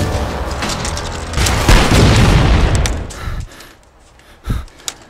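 Video-game-style explosion sound effect: a loud boom starting about a second and a half in that dies away over the next two seconds. Music is fading out as it begins, and a few faint clicks and one sharp knock follow near the end.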